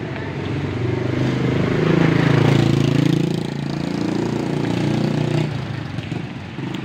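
A motorcycle engine passing close by, its pitch and loudness rising to a peak about halfway and then falling away as it moves off.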